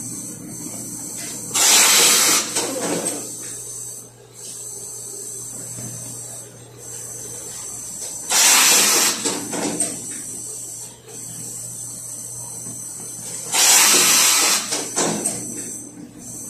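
Laundry garment steam press releasing steam in three hissing bursts, each about a second long, over the steady hum of the machine.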